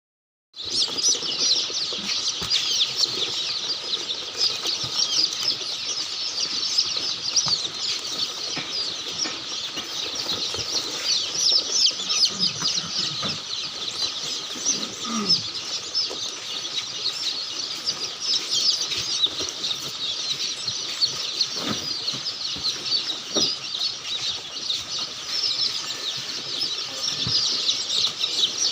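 A flock of chickens in a poultry house, many birds giving a dense, constant high-pitched chirping, with an occasional lower call.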